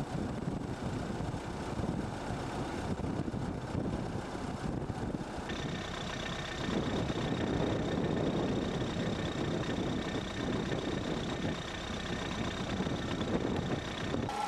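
Backhoe loader's diesel engine running steadily. It gets a little louder about six seconds in, and a steady high whine joins just before that.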